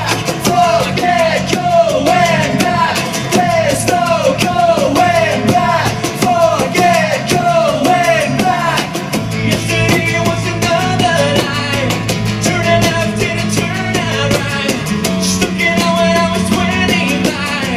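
Acoustic rock band playing an instrumental passage of a song live, with repeated falling guitar phrases about twice a second, then held chords over a steadier low part.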